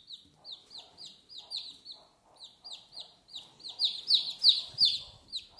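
Newly hatched chick peeping: a rapid string of short, high, falling peeps, about three a second, growing louder past the middle.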